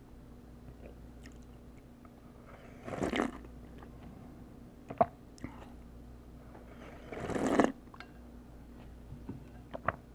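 A person eating pho and spring rolls close to the microphone: two short, loud, noisy mouthfuls about four seconds apart, with a few sharp clicks of chewing between them.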